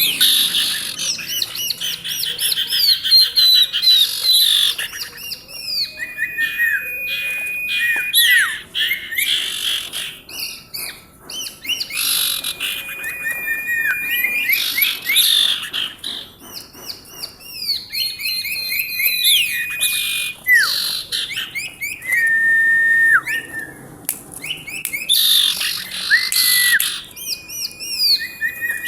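Female common iora singing constantly: long level whistled notes broken by quick rising and falling slurs and chattering phrases, repeated with only short pauses.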